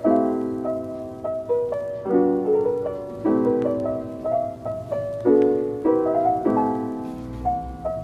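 Background music: a soft piano playing chords every one to two seconds, each left to ring out, with lighter melody notes between them.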